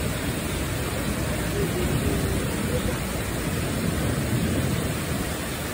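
Heavy rain falling, a steady dense hiss with no let-up.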